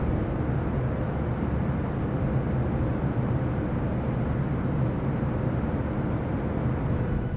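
Boeing 737 passenger cabin at cruising altitude: steady jet engine and airflow noise, a deep rumble with a hiss above it and a faint steady hum.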